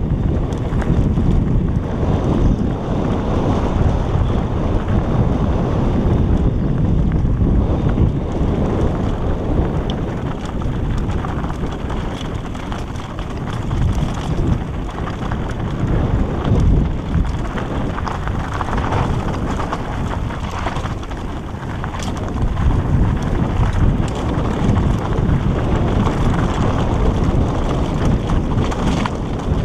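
Wind buffeting a helmet camera's microphone as a mountain bike rolls fast over a rocky dirt track, with tyre crunch and scattered sharp rattles from the bike over stones.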